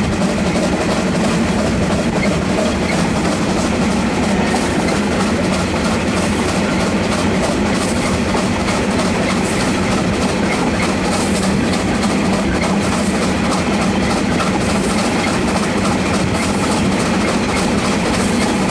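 Steam locomotive A10 No. 6, built by Neilson and Company in 1865, running along the line under steam, heard close up from its tender: a loud, steady din of engine and running train.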